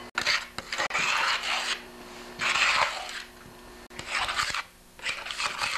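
A scraper dragged across a plywood tabletop, spreading and flattening beads of construction adhesive in four rasping strokes. The first stroke is the longest.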